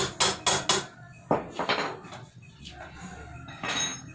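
Hammer striking metal on the hub of a spoked motorcycle rear wheel: four quick sharp blows in the first second, then two lighter knocks. A short metallic rattle near the end.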